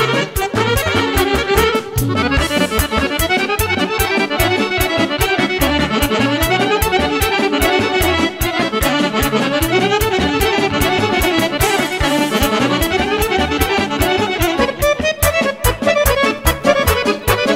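Serbian wedding band playing an instrumental dance tune, accordion leading the melody over a steady, even beat.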